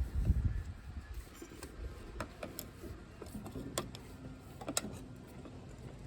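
Scattered light clicks and taps of hand work on a fuel hose and clamp at an ATV's fuel pump, with a low thump right at the start.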